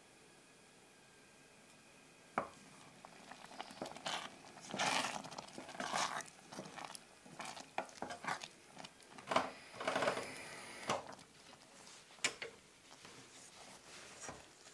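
Wooden spoon stirring cooked tomato rice in a stainless steel pot, with irregular scraping and wet stirring noises and sharp knocks of the spoon against the pot. The first sounds start about two seconds in, the busiest stirring is in the middle, and it fades near the end.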